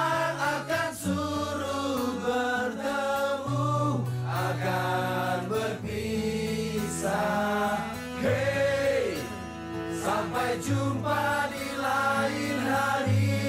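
Background music: a sliding, wavering melody over low held bass notes that change every couple of seconds.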